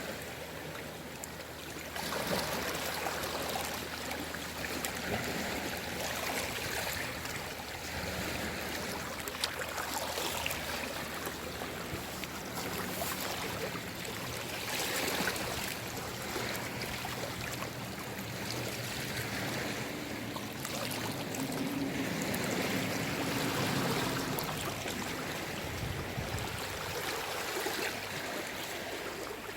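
Calm sea waves washing and lapping, a continuous wash of water that swells and eases gently.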